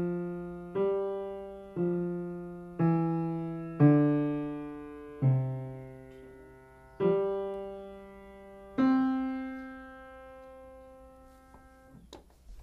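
Grand piano played slowly by a beginner, a simple melody of eight struck notes, each with low and higher notes together, at about one a second and spacing out toward the end. The last note is held and rings out for a few seconds, then a few faint knocks follow near the end.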